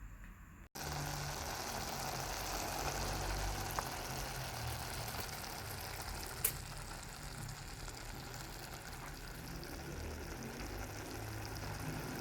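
Steady sizzling hiss of a tightly covered pot of callaloo steaming in a little oil and butter over a medium gas flame, starting abruptly under a second in, with one sharp click about six and a half seconds in.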